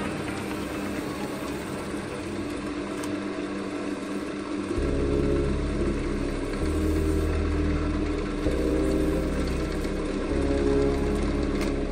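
Background music. A deep bass line comes in about five seconds in and changes note every couple of seconds.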